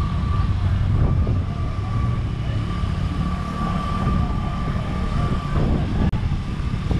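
Steady low rumble of vehicles on a road, with a thin steady high tone running through it.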